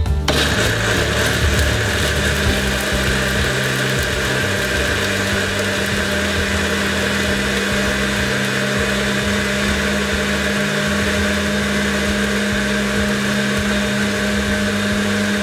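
Countertop blender switched on and running steadily, grinding peanuts, herbs and tea leaves in water into a smooth lei cha paste. A steady motor hum settles in about two seconds in.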